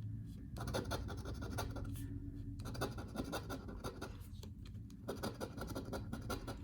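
Scratch-off lottery ticket being scratched with rapid short strokes, starting about half a second in and pausing briefly twice.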